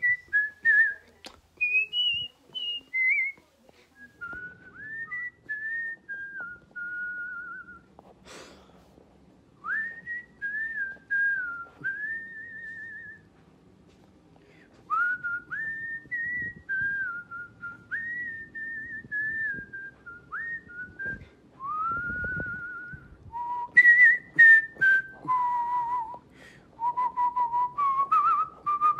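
A person whistling song melodies through pursed lips, one clear note at a time with a slight wobble on the held notes, moving through a medley of tunes; the melody drops lower and changes to a new tune about three-quarters of the way through.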